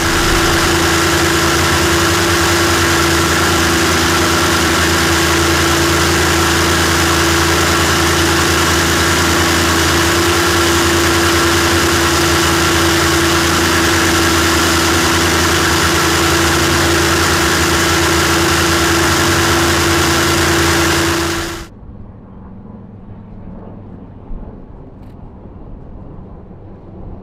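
Rolls-Royce Merlin V-12 of the P-51 Mustang air racer heard from inside the cockpit: a loud, steady drone with one strong hum, running at an even power setting. About 21 seconds in it cuts off suddenly to a much quieter, distant aircraft engine sound over open-air background.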